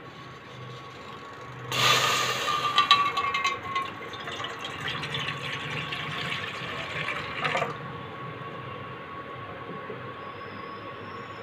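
Water pouring into a stainless steel pot, starting about two seconds in as a steady rush and stopping abruptly near eight seconds; a faint steady hum continues underneath.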